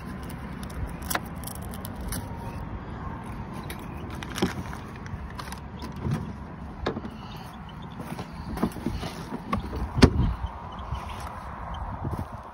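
Handling noise: scattered clicks and knocks, the loudest about ten seconds in, over a steady low rumble.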